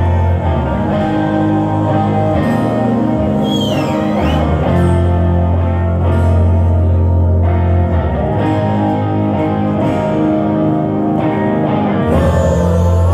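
Live rock band playing a slow opening: electric guitar over long held bass notes. A short whistle rises and falls about four seconds in.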